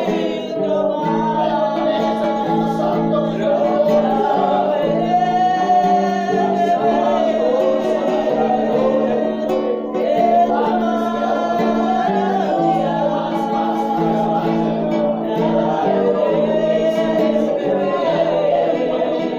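Worship song in a church service: voices singing a melody over a steady instrumental accompaniment, without a break.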